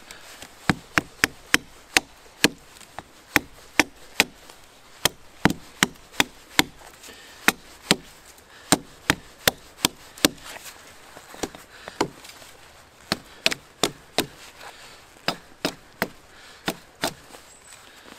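Small hatchet chopping a point onto a thin wooden stake held against a log: quick runs of sharp chopping strikes, about three a second, with short pauses between runs.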